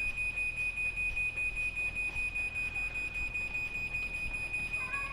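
Chamberlain RJO70 wall-mount garage door opener's warning beeper sounding rapid, even high-pitched beeps: the alert that a remotely commanded door is about to close.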